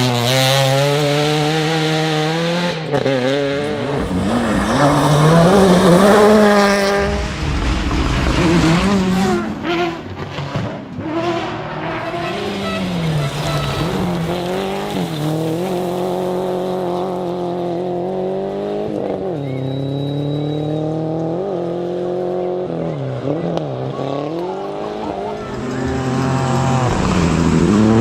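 Rally car engine driven hard on a stage: its pitch climbs through the revs, drops sharply at each gear change or lift, then climbs again. It is loudest about six seconds in and again near the end.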